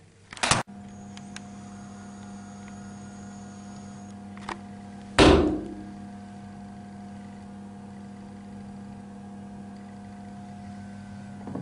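A short clunk, then a steady appliance-like electrical hum starts and keeps running. A loud thump comes about five seconds in, and a smaller one near the end.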